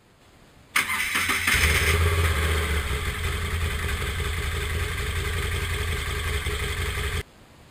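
Moto Guzzi V7's air-cooled transverse V-twin engine cranked on the electric starter, catching after well under a second and idling steadily for about five and a half seconds before stopping abruptly. It is a short run to prime the freshly changed oil filter and circulate the new oil.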